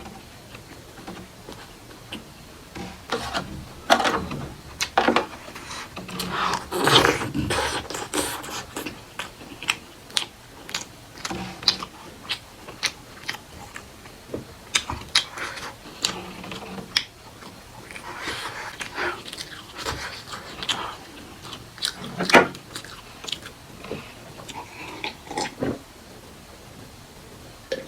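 Close-miked eating sounds: chewing, lip smacks and wet mouth clicks, coming in irregular bursts with short pauses between them.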